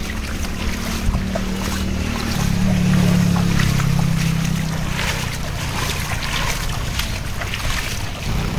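Steady low hum of a vehicle engine, its note shifting about two seconds in, over a wash of heavy rain and wind noise with many small sharp patters of drops.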